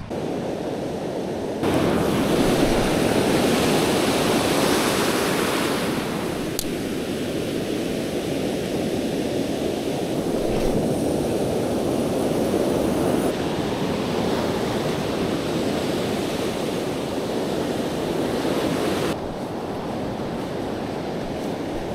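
Ocean surf breaking and washing up a beach, a steady wash of noise that swells louder about two seconds in and eases near the end.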